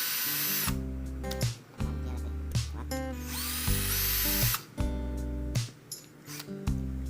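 Drywall screw gun motor whirring: it stops about half a second in, then spins up again with a rising whine about three and a half seconds in and runs for about a second before stopping. Background music with a steady bass line plays throughout.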